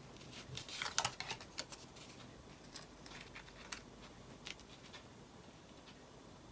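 Soft clicks and rustles of tarot cards being drawn from the deck and laid out on a table, loudest about a second in, then scattered single clicks.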